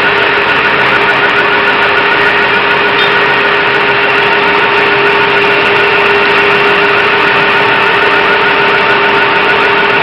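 Fire truck's engine running steadily close by: a loud, unbroken drone with a steady held tone over it.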